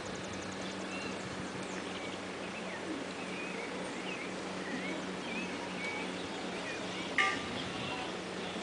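Birds chirping in short, curving calls over a steady low hum and hiss. One sharp knock comes about seven seconds in.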